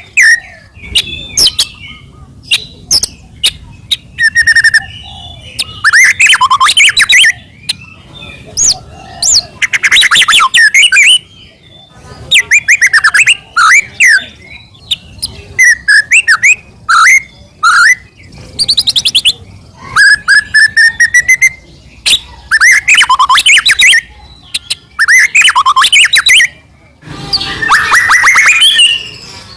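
White-rumped shama singing loudly, phrase after phrase of varied song: rapid trills and rattles alternating with rising and falling whistled notes, with short pauses between phrases.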